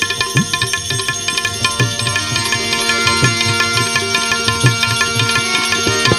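Instrumental interlude of a Gujarati devotional bhajan. A hand drum keeps a steady rhythm of low strokes, some bending in pitch, under sustained melody instruments.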